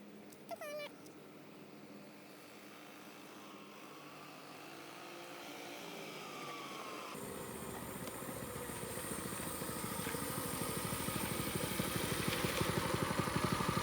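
Mini bike's small engine running and growing steadily louder as the bike comes closer, its fast firing pulses becoming clear about halfway through. A short high cry falling in pitch sounds about half a second in.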